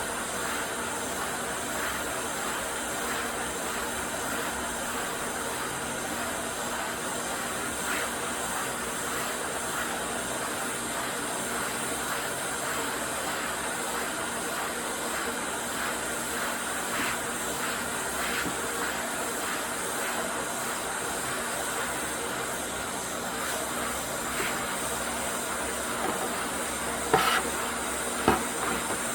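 ATTEN ST-862D hot air rework station blowing a steady hiss of hot air onto a circuit board to melt the solder on a USB socket. A few sharp clicks come near the end.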